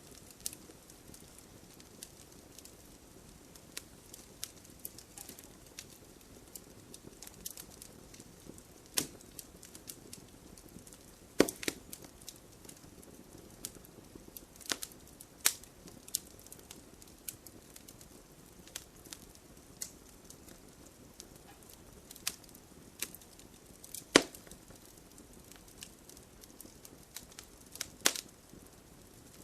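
Wood campfire crackling: a faint steady hiss of burning with irregular sharp snaps and pops, a few louder cracks among them, the loudest about halfway through.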